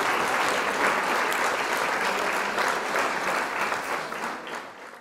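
Crowd applause, a dense patter of many hands clapping, fading out near the end.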